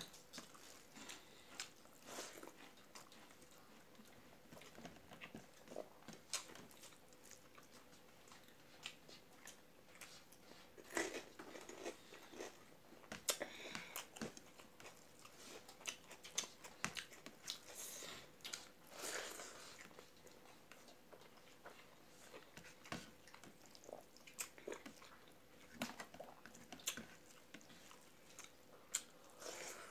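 Close-up eating sounds: chewing and mouth clicks, with fingers mixing rice on a steel plate, as scattered soft clicks and rustles.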